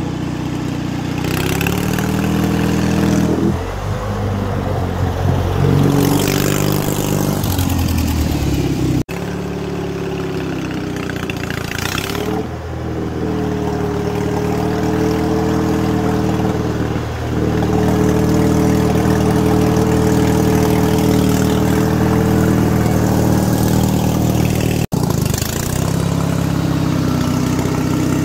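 Riding lawn mower engine running hard as the mower drives through deep water and mud, its note dipping briefly a few times and picking back up, with water sloshing around the wheels.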